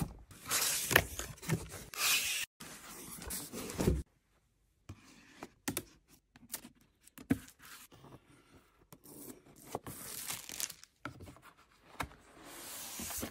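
Packaging being opened by hand: cardboard box flaps rubbing and plastic shrink-wrap being torn and crinkled off, in irregular bursts of tearing and rustling, with a brief silent gap about four seconds in.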